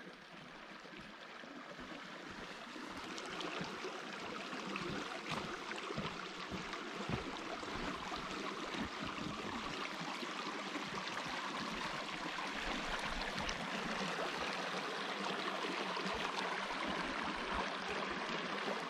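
A small meadow creek flowing and burbling over stones close by, a steady rush of water that swells over the first few seconds and then holds even.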